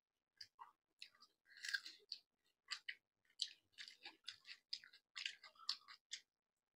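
Faint chewing and mouth sounds of people eating chicken leg pieces with rice: irregular soft clicks and crunches, a few a second.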